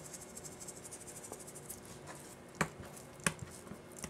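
Salt sprinkled by hand onto raw sockeye salmon pieces on a wooden cutting board: a faint, rapid patter of falling grains, with two sharp light taps a bit past halfway.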